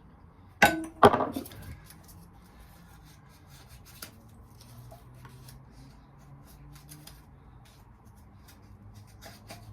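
Two sharp metallic clinks with a short ring, a little under half a second apart, then faint scattered light clicks and handling noise of small metal tools and engine parts.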